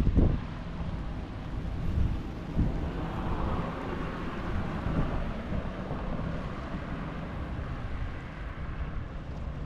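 Wind buffeting the microphone in uneven gusts, with a broad rushing sound that swells and fades in the middle.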